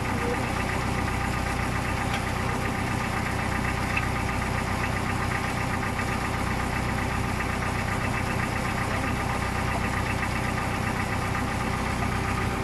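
An engine idling steadily, an even drone that does not change.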